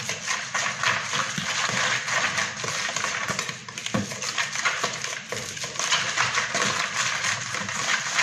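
Flour and a little water being mixed into dough in a plastic bowl: quick, continuous scraping and rubbing against the bowl, with a short lull just before the middle.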